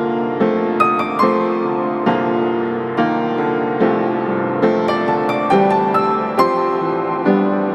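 Background piano music: a slow melody over chords, with notes struck about every half second to a second.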